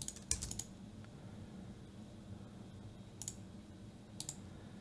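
Clicks on a computer while working in software: a quick run of clicks at the start, then short pairs of clicks about three and four seconds in, over faint room hum.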